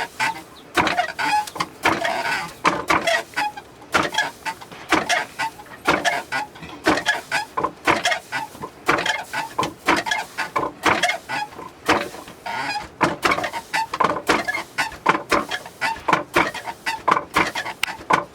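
Barley being milled by hand with a traditional village tool: a run of short, irregular grinding and knocking strokes, about one or two a second, with chickens clucking in between.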